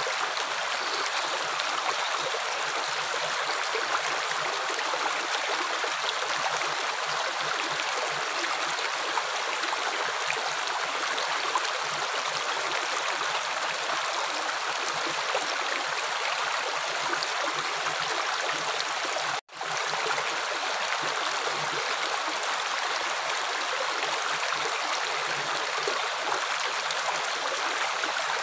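Running water flowing steadily, an even rushing with no distinct splashes. It cuts out for a split second about two-thirds of the way through, then carries on unchanged.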